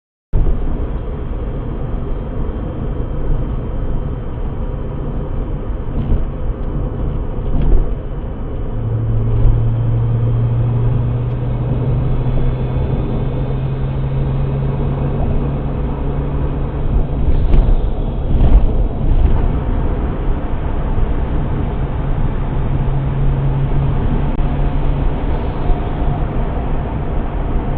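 Nissan Skyline HCR32 on the move: steady engine and road rumble, with a low droning hum that comes and goes and a few light knocks partway through.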